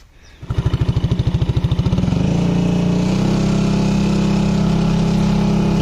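Small motor scooter engine starting about half a second in, with a fast pulsing beat that smooths into a steady run after a second or so.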